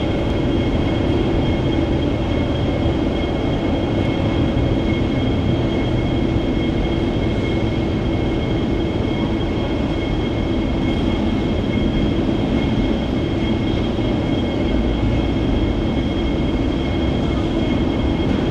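Steady muffled rumble with a constant high whine from a United Boeing 777's jet engines as the airliner taxis directly beneath, heard through thick glass.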